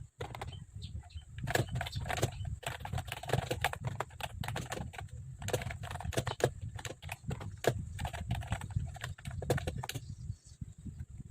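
Typing on a computer keyboard: quick, irregular runs of key clicks, stopping shortly before the end, over a steady low hum.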